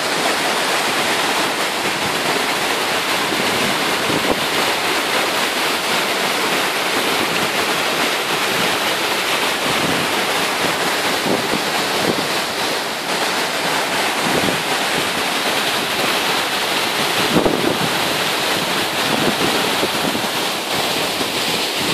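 Steady rushing of a tall waterfall pouring down a rock face, heard from close to its base.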